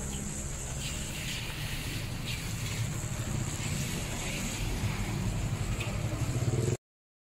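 Street ambience: a steady low rumble of road traffic with a steady high hiss over it and a few faint clicks. The sound cuts off suddenly near the end.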